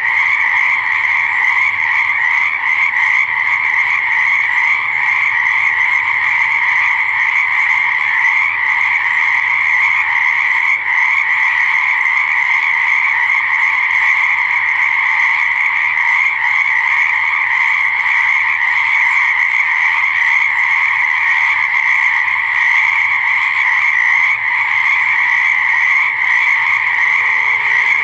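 A dense chorus of many frogs calling at once, blending into a steady, unbroken wall of sound.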